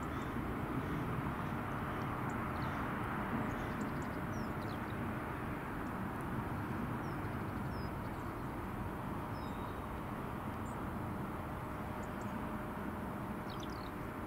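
Steady distant rumble of an Airbus A350 airliner's Rolls-Royce Trent XWB jet engines high overhead, with a few small birds chirping faintly.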